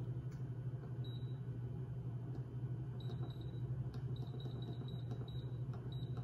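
Electric pressure cooker's control panel beeping with each button press as its timer is set: a series of short, high beeps from about a second in, over a steady low hum.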